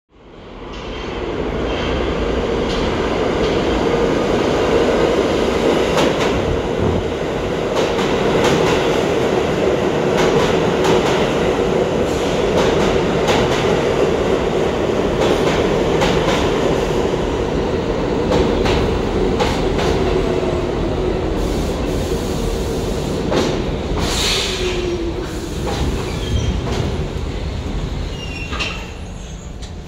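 Pullman-Standard R46 subway train pulling into a station and slowing to a stop. Its wheels run on the rails with a steady rumble and repeated clacks over rail joints. A falling whine comes in near the end as it brakes.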